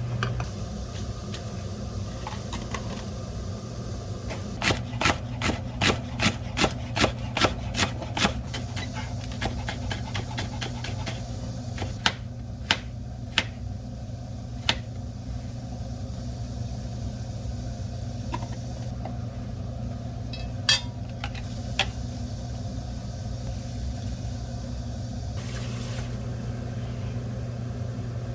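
A run of about nine sharp knocks, roughly two a second, then a few scattered knocks later on, over a steady low hum.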